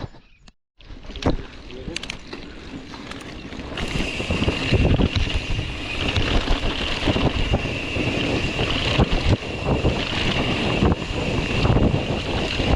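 Mountain bike ridden over a rough trail: wind buffeting the camera microphone over the rumble and rattle of the bike on uneven ground. A steady high buzz joins about four seconds in.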